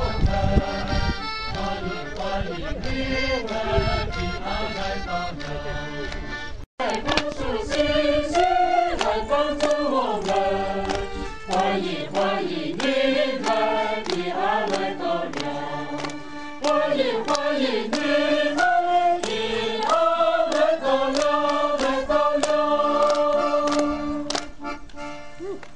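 A group of Miao village women singing together in unison, with melodies that glide up and down. The singing breaks off for an instant about seven seconds in, then carries on.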